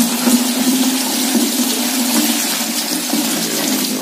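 Water pouring in a steady stream from a plastic bucket through a plastic colander into another bucket, splashing as the old water is drained off live bait fish.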